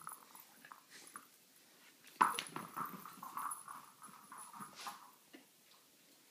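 A young dog whimpering in a wavering whine for about three seconds, starting right after a sharp knock about two seconds in.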